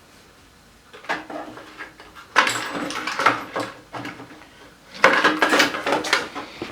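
Metal tools and parts being handled, clattering and knocking in quick irregular bursts. It begins about a second in and is loudest in two clusters, one in the middle and one near the end.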